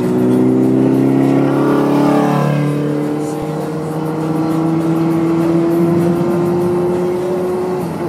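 Car engine heard from inside the cabin while driving, its pitch climbing slowly as it accelerates, then dropping suddenly near the end as with a gear change.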